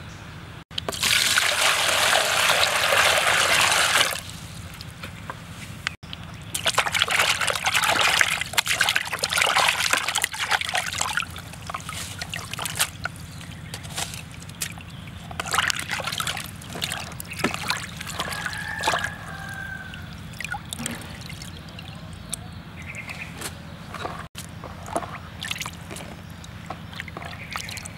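Water rushing steadily for about three seconds near the start, then hands sloshing and splashing raw shrimp and pork in a plastic colander in a basin of water, busiest for a few seconds after the first pause and then in scattered splashes.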